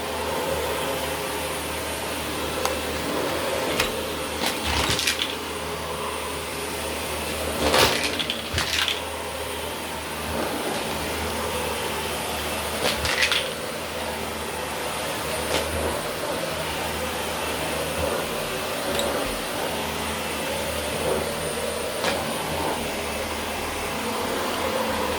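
Dyson vacuum cleaner running steadily over carpet with a thin high whine. A few short rattles break in, the loudest about a third of the way through.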